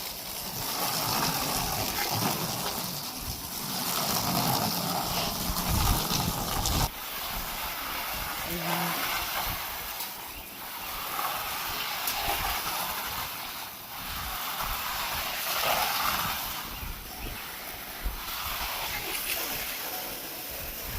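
Water spraying in a hissing, splashing stream that swells and eases every few seconds.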